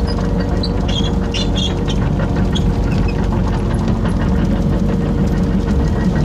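Excavator's engine running steadily under load while the machine pushes snow, with a few short high squeaks and clicks about a second in.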